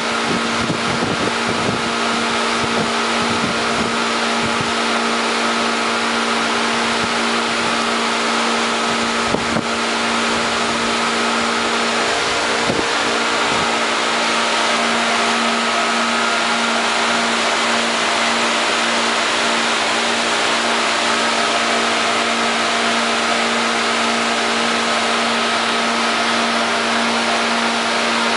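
Steady machinery hum: a constant droning tone with hiss over it, with a few low knocks in the first few seconds and a brief tap near ten seconds in.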